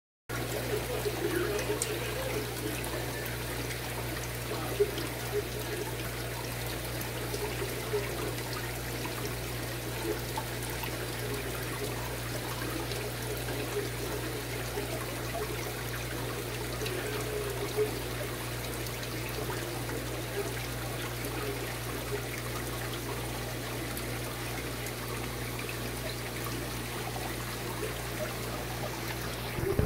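Water trickling steadily in a fish-keeping setup, over a low steady hum, with a few small clicks.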